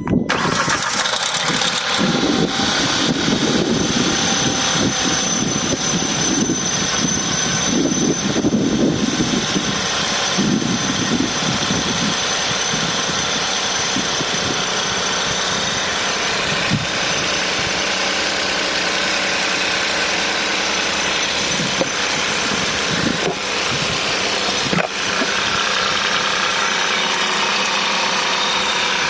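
Hyundai i20's 1.0 T-GDi three-cylinder turbocharged petrol engine starting from cold and running at a fast cold idle, making a noise the owner cannot identify. A heavy rumble fills the first dozen seconds and then eases. A thin high whine comes and goes, and a few sharp clicks sound later on.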